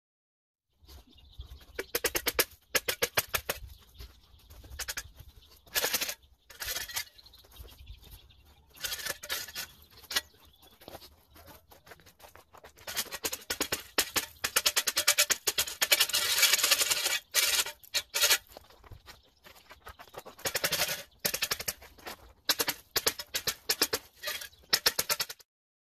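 Metal shovel blade scraping and chopping at hard-packed snow, in bursts of gritty crunching strokes that come and go, the busiest stretch in the middle. The snow is dense and hard to carve.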